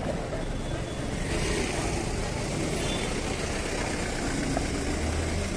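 Street traffic noise: vehicle engines running and passing in a steady wash of sound, with a low engine hum in the second half.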